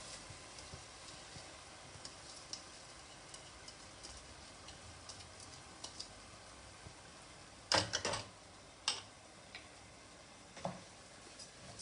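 Washed rice going into a pot of hot fried masala: faint sizzling under scattered light clicks of a utensil against the pot. A short clatter comes about eight seconds in, and a few single knocks follow.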